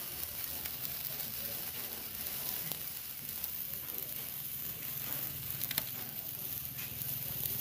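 Hand-held sparkler burning with a steady crackling hiss, with a couple of sharper crackles about six seconds in.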